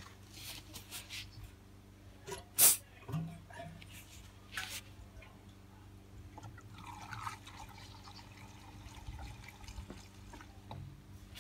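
Fuel being poured from a jerry can into a lawnmower's fuel tank, a steady trickling and glugging that begins about halfway through. Before it come a few sharp knocks and clinks from handling the can.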